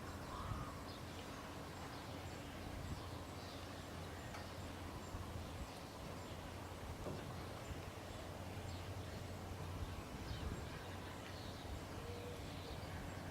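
Faint, steady low drone of farm machinery, with birds chirping now and then over it.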